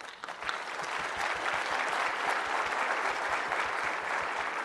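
A large audience applauding: many hands clapping at once, swelling over the first second and then holding steady.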